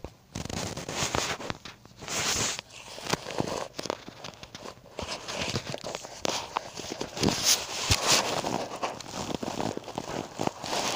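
Handling noise: the phone's microphone rubbing and scraping against knitted fabric, in irregular rustling bursts with scattered clicks.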